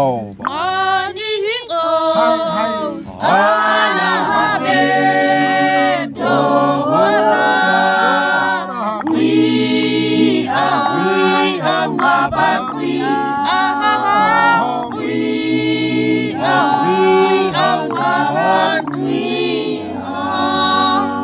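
A choir singing a cappella, several voices holding sustained chords in phrases a few seconds long.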